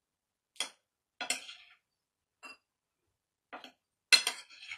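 Metal spoon clinking against dishes while sausage and shrimp are served onto a plate: about six separate clinks, the loudest a quick cluster near the end.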